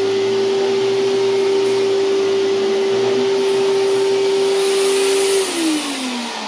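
2003 Hoover TurboPower 5000 canister vacuum running loud with a steady high whine over the rush of air. About five and a half seconds in it is switched off, and the motor's whine falls in pitch as it spins down.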